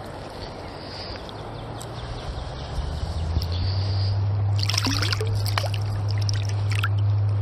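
Water trickling and sloshing at the river's surface, then a steady low hum that sets in about three seconds in, with short bird chirps over it in the second half.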